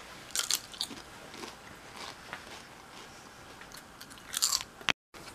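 Potato chip bitten and chewed close to the mouth: a sharp crisp bite at the start, a few loud crunches just after, quieter chewing crunches, then another burst of crunching a little after four seconds.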